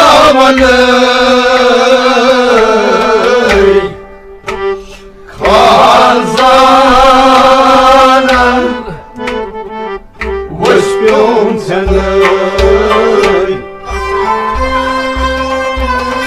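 Kashmiri Sufi music: a voice sings long, wavering melismatic phrases over a steady held drone, with tabla accompaniment. The tabla strokes turn into a steady beat in the last few seconds.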